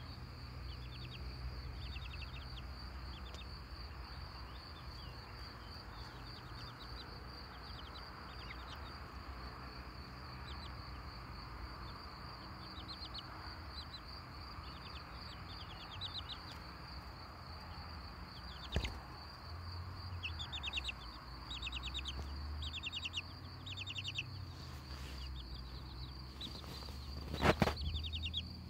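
Young chicks and goslings cheeping softly in short repeated bursts over a steady high-pitched insect drone. There is a knock about two-thirds through and a louder thump near the end, as a chick climbs onto the arm holding the camera.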